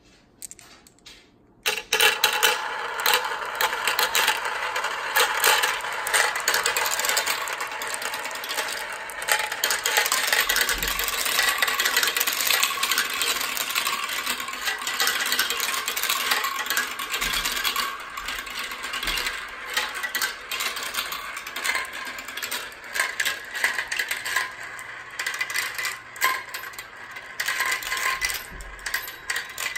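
A dozen glass marbles set off down plastic and wooden marble-run tracks about two seconds in. They clatter and roll in a dense, continuous stream of clicks and rattles that grows sparser toward the end.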